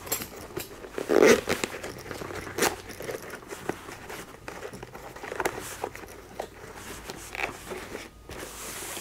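Neck curtain being pulled off a Bell Pit Boss half helmet: irregular fabric rustling, crinkling and small clicks from hands working it loose, with a louder rustle about a second in.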